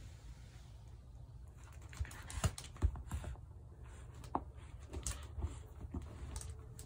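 A puppy chewing and worrying a boot on a hard floor: irregular clicks and knocks of the boot and its paws against the floor, few at first and more frequent from about two seconds in.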